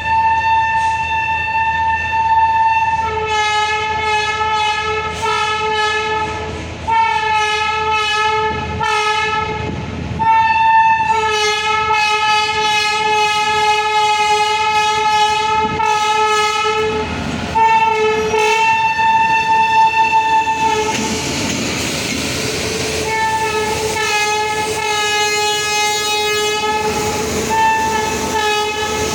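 Indian Railways locomotive horn sounded in long, nearly continuous blasts with brief breaks, a two-note chord for most of the time. This is the loco pilot's response to the alarm chain being pulled. About 21 seconds in, a rushing noise briefly covers the horn.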